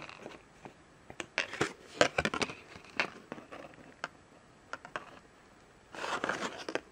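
Hands handling a small plastic keychain charm, its cardboard backing card and a clear plastic bag: a run of sharp clicks and rustles, then about a second of plastic crinkling near the end.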